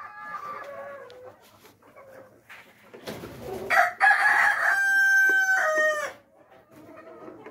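Rooster crowing once, a loud drawn-out call of about two seconds that drops in pitch at the end, with hens clucking softly at the start and a brief rustle just before the crow.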